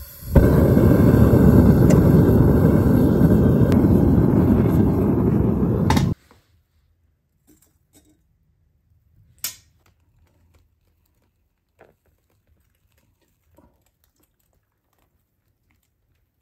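Propane foundry furnace burner running with a steady, loud roar while melting scrap copper and aluminum in the crucible. It cuts off abruptly about six seconds in, leaving near silence with a few faint clicks.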